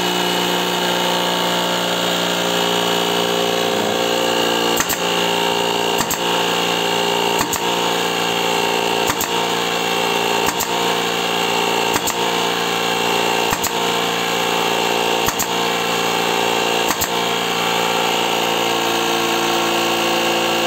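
Parkside cordless battery compressor running steadily, pumping up toward its 6-bar set pressure. There is a light tick about every second and a half over the steady motor hum.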